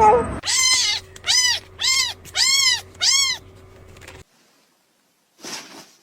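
A cat meowing five times in quick succession, each short call rising and then falling in pitch.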